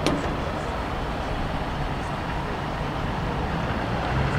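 Steady low rumble and hiss of a moving vehicle, with one sharp click at the start.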